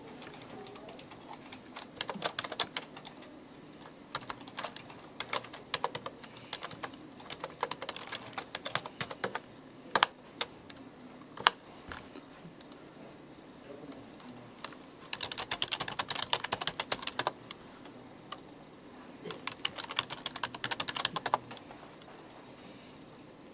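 Typing on a computer keyboard: runs of quick key clicks a few seconds long, broken by short pauses, with a couple of louder single keystrokes midway.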